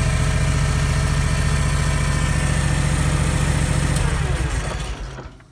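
26 hp Kawasaki liquid-cooled, fuel-injected V-twin engine of a skid steer idling steadily, then switched off about four seconds in, its pitch falling as it runs down to a stop.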